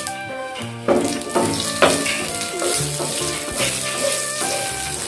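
Whole spices (bay leaves, dried red chillies and panch phoron) sizzling in hot oil in a frying pan as they are stirred for a dal tempering, over steady background music. The sizzle hisses more thickly from about a second in.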